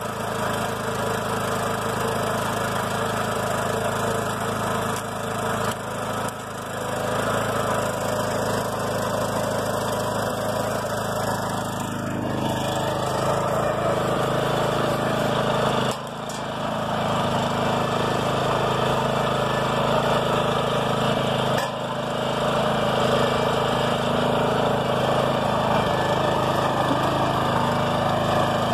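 Engine of a BCS walk-behind tractor running steadily just after being started, its level dipping briefly about 16 seconds in and rising a little near 22 seconds.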